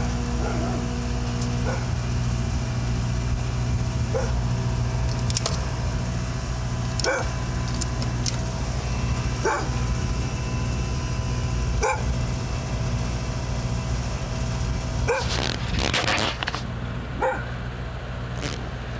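A dog barking, single barks one to three seconds apart, over a steady low hum. About three-quarters of the way in there is a brief cluster of louder, noisier sounds.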